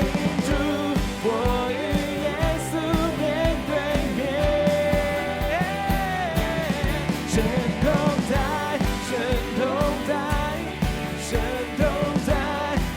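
Worship song instrumental passage: a melody played on a keyboard's flute sound, bending and gliding, over a band with a steady drum beat.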